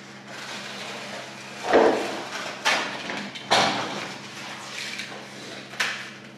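Objects being knocked and set down on a tabletop: four sharp knocks and clacks, the loudest about two seconds in. A steady low hum runs underneath.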